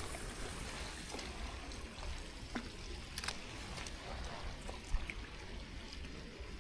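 Water trickling steadily, with a few faint clicks and a single soft thump about five seconds in.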